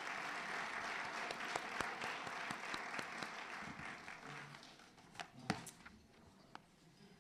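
Audience applauding, fading out about four to five seconds in, followed by a few scattered knocks.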